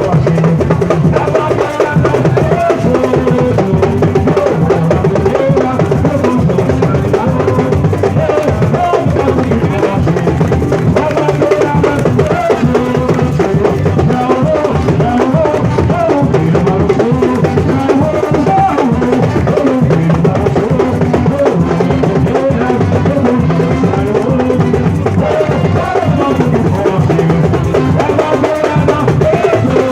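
Percussion ensemble playing a dense, driving drum rhythm with deep bass drums, steady throughout.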